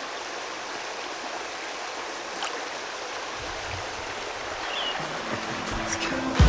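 Shallow mountain stream running steadily over rocks. From about halfway through, low rumbles and bumps come in as the camera is moved.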